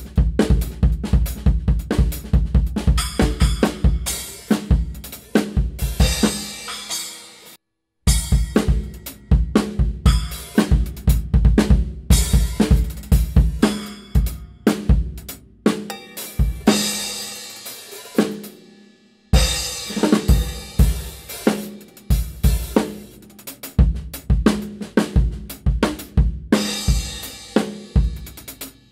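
Drum kit played in grooves and fills with Sabian B8-series cymbals: kick, snare, hi-hat and crash cymbals ringing. The playing is in separate takes: it cuts off dead about seven and a half seconds in, and drops out again briefly around nineteen seconds in before starting up again.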